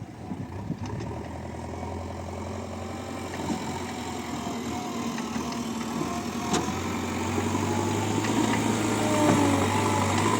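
Heavy diesel engine running and growing steadily louder, with a single sharp knock about six and a half seconds in.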